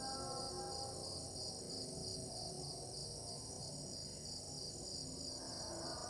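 Crickets chirping in a steady chorus: a high, evenly pulsing trill over a continuous higher buzz.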